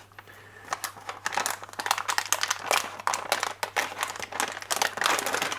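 Plastic packaging crinkling as it is handled and opened: a dense run of irregular crackles, sparse at first and busier from about two seconds in.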